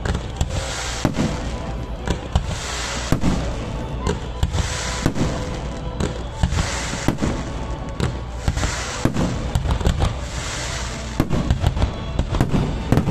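Aerial fireworks bursting, a continuous string of sharp bangs and crackles, with a quicker run of bangs near the end.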